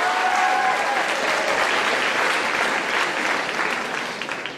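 Audience applauding, with a few voices calling out in the first second or so, the clapping fading near the end.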